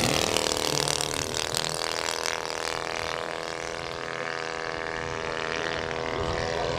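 Two-cylinder four-stroke petrol engine (Valach VM 120 B2-4T) of a giant-scale RC Zlin XII model airplane running in flight, a steady propeller drone that fades a little about four seconds in and then grows louder again as the plane comes back round.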